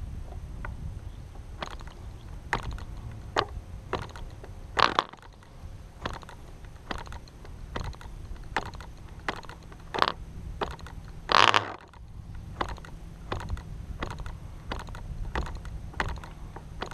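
Cox RR1 .049 glow engine being hand-flipped for a cold start: a sharp snap of the propeller about every 0.7 s without the engine catching, with one longer, louder pop a little past halfway. The engine is still loaded with after-run storage oil, so it won't fire. A low rumble runs underneath.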